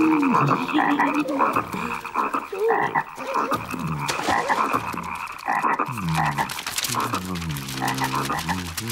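A crowd of cartoon frogs croaking at once, many overlapping croaks, with deeper, evenly repeated croaks in the last few seconds.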